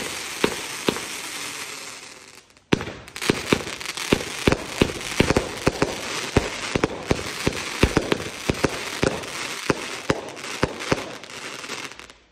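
A 49-shot consumer firework cake firing: a quick run of sharp bangs, about three a second, with crackling stars between them. The shots fade and stop briefly about two and a half seconds in, then start again and keep going.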